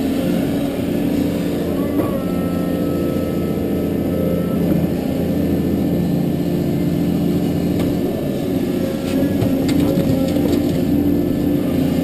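Caterpillar 320D excavator's six-cylinder diesel engine running steadily under working load, heard from inside the cab, with a thin hydraulic whine as the boom swings and digs. A few sharp knocks from the bucket working soil and rock come a little past halfway.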